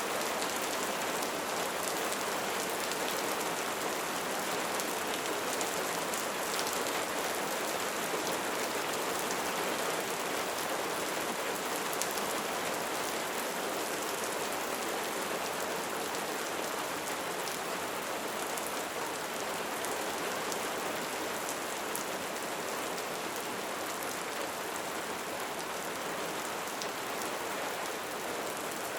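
Steady light rain falling on a surface, a continuous soft hiss with many small drop ticks.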